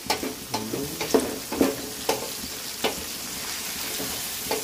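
Chopped onions, green chillies, cashews and tomato sizzling in hot oil in an aluminium kadai, stirred with a wooden spatula that scrapes and knocks against the pan every half second or so, less often in the second half.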